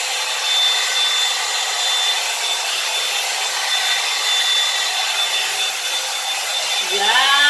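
Revlon One-Step hot-air brush dryer running steadily while it is drawn through hair: a constant rush of air with a thin high whine.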